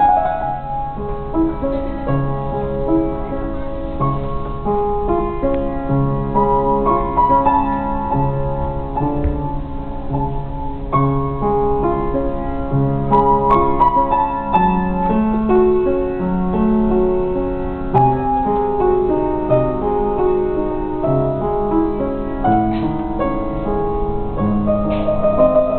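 Upright piano played solo, a continuous piece with a melody over a moving bass line.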